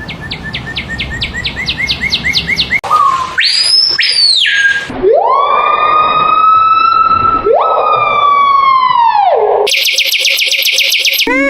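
Odd bird calls cut one after another. First comes a fast run of rising chirps, about five a second. Then come long siren-like wails that rise, hold and fall, twice. Near the end there is a rapid buzzing trill.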